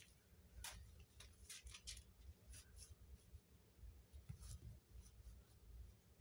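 Faint scratching and rustling of a reusable shopping bag as a kitten paws and digs into it: a scatter of short scrapes, most in the first three seconds.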